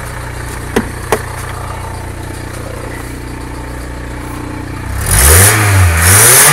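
VW Caddy diesel engine idling steadily on its first start after months of standing, with two sharp clicks about a second in. Near the end the engine is revved twice, rising and falling in pitch each time.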